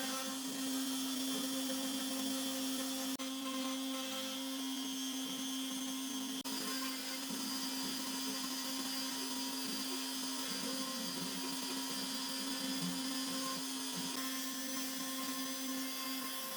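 X-Carve CNC router's spindle running steadily as it engraves a wooden panel: an even high-speed motor whine with a faint hiss of cutting.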